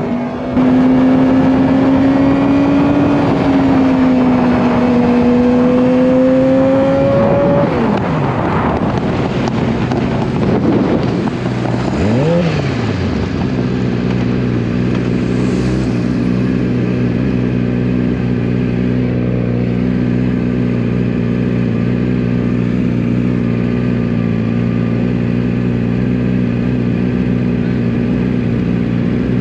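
Racing motorcycle engine at high revs, with steps in pitch as it shifts gear. About seven seconds in, the revs drop sharply, rise and fall briefly, and then hold at a steady pitch for the rest of the time.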